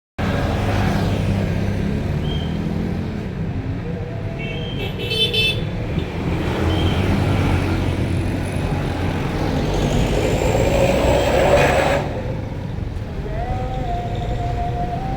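Tour bus engine and road noise as buses pass, with a short burst of musical horn notes about five seconds in and a steady horn tone starting near the end: a bus 'telolet' multi-tone horn.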